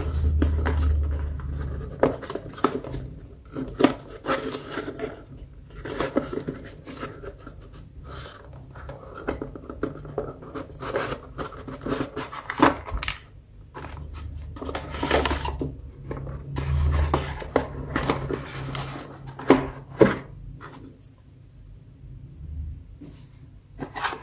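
Hands handling an LED bulb box and its packaging: irregular rustling, scraping and clicking, with a few low bumps against the table.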